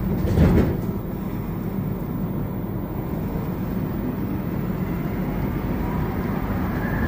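Inside a rubber-tyred Montreal Metro AZUR train car, the steady running noise of the train pulling along a station platform and gathering speed, with a brief louder rumble about half a second in.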